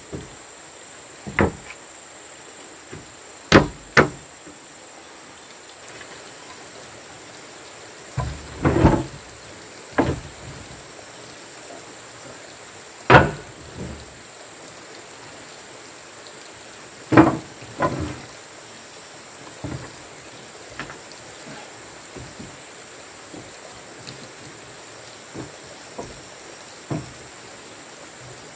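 Wooden planks knocking and clattering against a plank-built wooden box as boards are handled and fitted onto it: single irregular knocks a few seconds apart.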